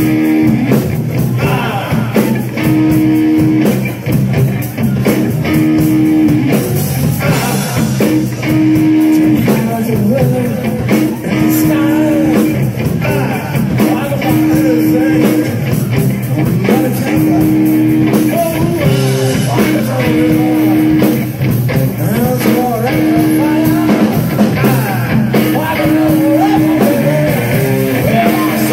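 Live rock band playing loud: electric guitar over a drum kit, with a held note repeating about every three seconds and bending guitar lines above it.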